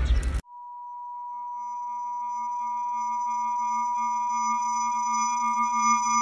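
End-card sound: a steady electronic tone starts about half a second in and slowly grows louder. After about a second it is joined by several higher tones and one lower tone, all held level.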